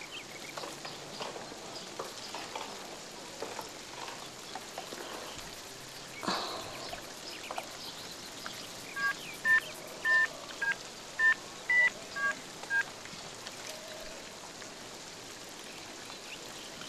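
Touch-tone keypad beeps as a number is dialled on a cordless home phone: about eight short two-note beeps in quick, uneven succession over some four seconds, starting about nine seconds in. A brief knock comes a few seconds before them.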